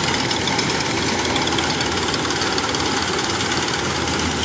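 Kubota DC105X rice combine harvester running steadily as it works through the crop, its diesel engine and threshing machinery giving a constant even noise.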